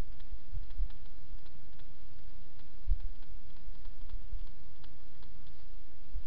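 Light, irregular ticks and taps of a stylus on a pen tablet while handwriting, with a few dull low bumps, the strongest about three seconds in.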